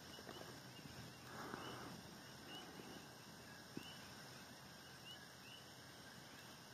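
Near silence: faint open-air ambience with soft high chirps repeating about every half second.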